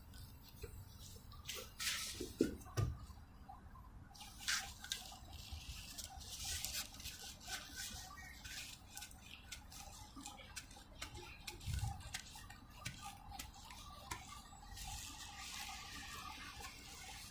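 Faint, scattered clicks and small knocks of rusty steel pliers being handled and worked, with a soft hiss near the end.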